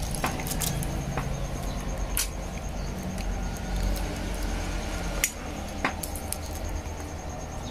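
A few scattered light clicks and taps as wire leads and a plastic motorcycle handlebar switch are handled, over a low steady hum.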